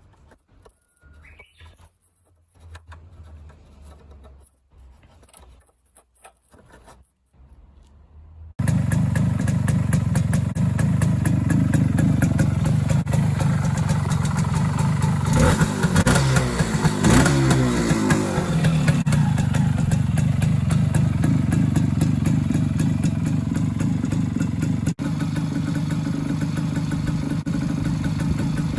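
Suzuki K125's single-cylinder two-stroke engine running through its repaired muffler, after a few faint clicks of handling. It comes in abruptly about a third of the way in, is revved a few times near the middle, then settles to a steady idle.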